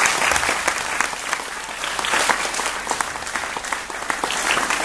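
Audience applauding, a dense steady clapping of many hands.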